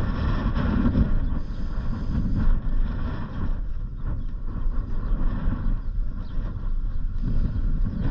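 Steady low rumble of a vehicle driving slowly, with wind buffeting the microphone.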